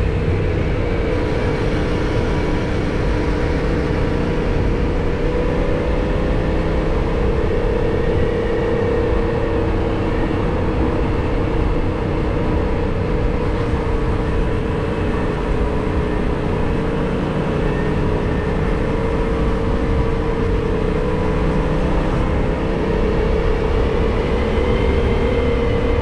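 Yamaha MT-07's parallel-twin engine running steadily at cruising speed, its note holding a nearly constant pitch. Underneath is a low rumble of wind rush.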